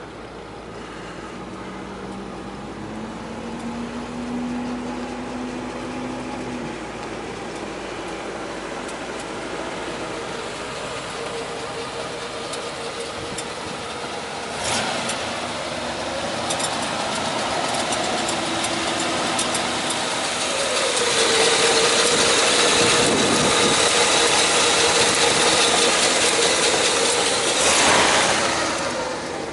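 A 1959 Cadillac's V8 engine running steadily. About two-thirds of the way in, the electric-hydraulic pump of the convertible's power top starts with a louder steady whine as the top raises. It cuts off sharply near the end.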